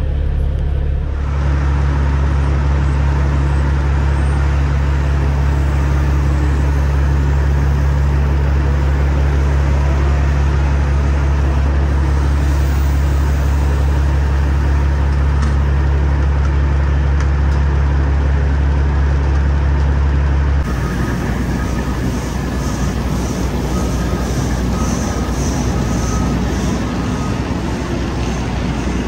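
Semi truck's diesel engine idling with a steady low hum. About twenty seconds in, the sound switches abruptly to a rougher, noisier running.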